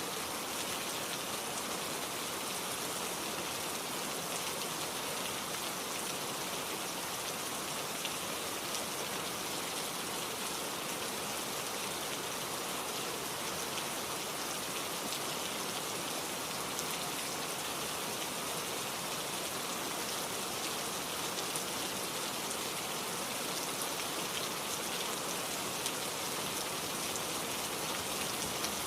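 Steady rain falling, an even hiss of many fine drops pattering on a surface.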